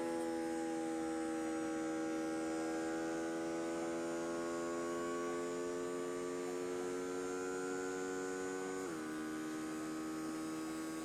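Small air pump of a pneumatic hand-rehabilitation robot glove running with a steady pitched hum, inflating the glove's finger actuators so the fingers curl into a fist; its pitch steps down slightly about nine seconds in.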